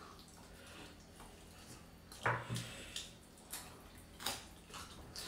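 Quiet eating sounds: chewing and the wet squish of rice being mixed with dal by hand, with a few short crunches from bites of raw cucumber.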